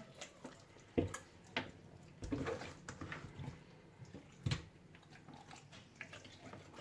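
Hands rubbing raw chicken pieces with ground salt and lemon: irregular wet squishing and scraping, with a few sharp knocks, the loudest about a second in and again around four and a half seconds.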